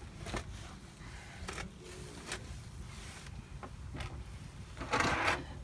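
Light handling noises over a steady low rumble: a few scattered clicks and a short rustle near the end.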